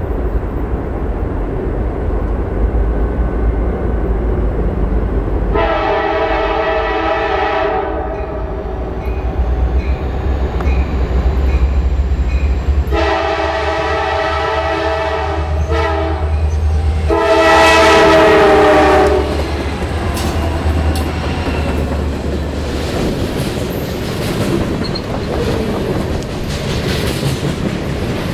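CSX freight train approaching and passing: the diesel locomotive sounds its horn in three blasts, the last the loudest, over the low rumble of its engine. Then covered hopper cars roll by with their wheels clattering over the rails.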